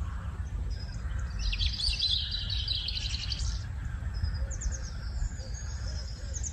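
Small birds chirping and trilling, with a dense run of rapid chirps from about one and a half to three and a half seconds in, over a steady low rumble.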